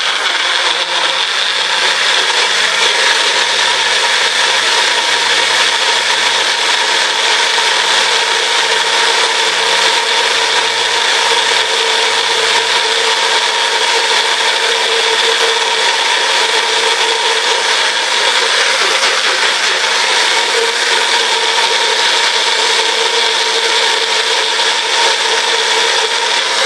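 Countertop blender running steadily at full speed, blending fruit and almond milk into a smoothie.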